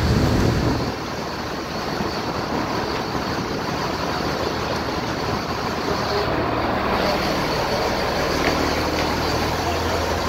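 A boat's engine running steadily under a continuous rushing wash of water and wind, with a low hum underneath.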